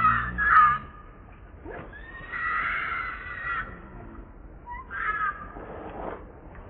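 Newborn long-tailed macaque crying in high-pitched screams: two short cries in the first second, a longer cry of about a second and a half in the middle, and another short cry about five seconds in.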